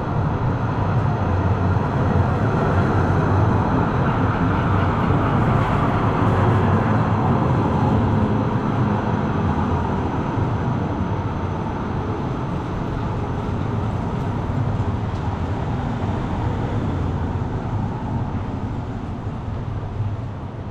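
Street traffic: the steady low rumble of a heavy vehicle passing close by, loudest a few seconds in and then slowly fading.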